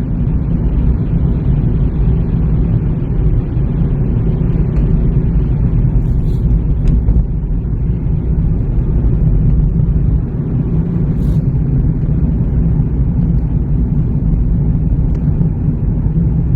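Car driving at a steady pace: a constant low rumble of engine and road noise, with a few faint ticks along the way.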